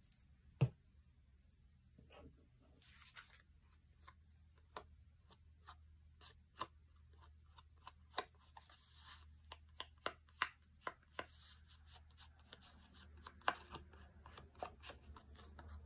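Quiet hand-handling sounds: fingertips rubbing gold paint onto an embossed paper tag, with scattered light taps and clicks and one sharper click about half a second in.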